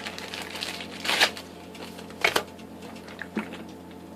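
Hands handling the small items from a fingerboard package: a brief rustle about a second in, a sharp click a little after two seconds, then a couple of faint ticks.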